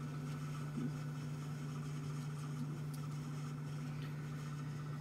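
Steady low mechanical hum with a constant pitch, unchanging throughout.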